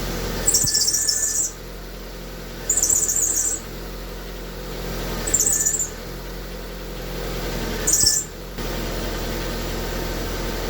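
Car squealing four times in short high-pitched bursts as the steering wheel is turned to full lock, over the steady hum of the idling engine. The owner traces the squeal to a damaged protective plate in the steering knuckle rather than the alternator belt.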